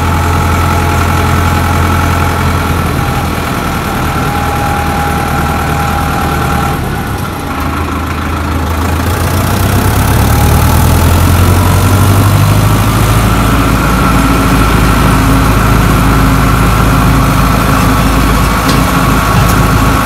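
Sonalika tractor's diesel engine running while driving, with a thin steady whistle over the engine note, the turbo whistle. The engine note dips briefly about a third of the way in, then grows louder.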